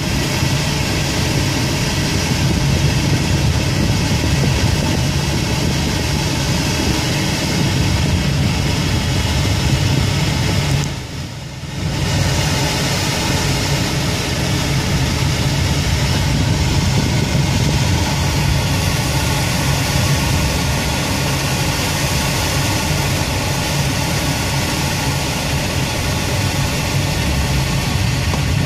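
Air rushing past the canopy of an ASK-21 glider in flight, a steady rush heard from inside the cockpit. It dips briefly about eleven seconds in.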